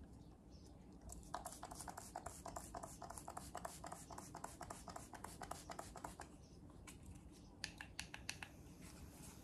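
MAC Fix+ setting spray being pumped: a fast run of short spritzes for about five seconds, then a few single spritzes near the end.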